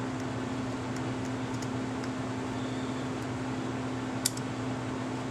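Steady hum of a fan or air conditioner running in a small room, with one sharp click a little over four seconds in.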